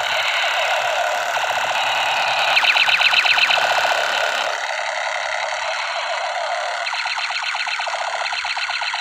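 Battery-powered toy machine gun sounding its electronic firing effect: a very rapid stuttering rattle over a warbling, siren-like electronic tone, loudest about three seconds in.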